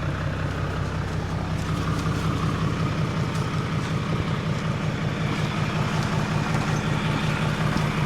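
Heavy truck's diesel engine running at a steady, even pulse, heard from the cab.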